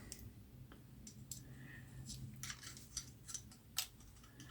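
Faint, scattered light clicks of small metal parts and hand tools being handled, about half a dozen over a few seconds, over a low steady hum.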